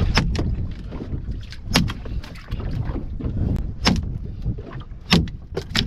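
About six sharp knocks at irregular intervals on a small fishing boat, over a steady rumble of wind on the microphone.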